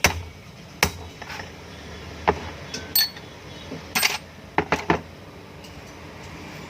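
Hammer tapping on a metal shaft to drive a broken ball bearing out of a ceiling fan motor's cover: about ten sharp metallic knocks and clinks at uneven intervals, one ringing briefly about three seconds in.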